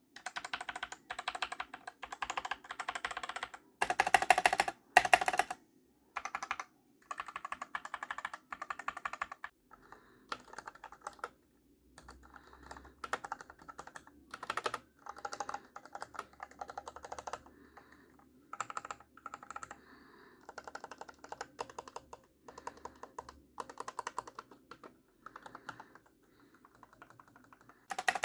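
Mechanical keyboard with linear switches being typed on in quick bursts of keystrokes with short pauses between runs; the loudest run comes about four to five seconds in.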